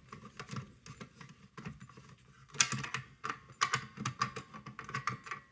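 Irregular clusters of light clicks and taps.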